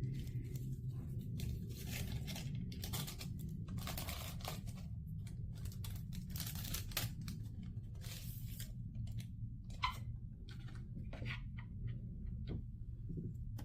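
Plastic instant-noodle packet being torn open and crinkled in irregular rustling bursts, over a steady low hum.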